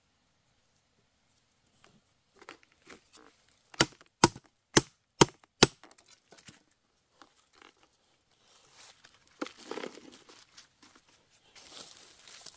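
A large knife chopping five times in quick succession, about half a second apart, a few seconds in. Later, dry leaf litter and soil crunching and rustling as they are scooped and handled.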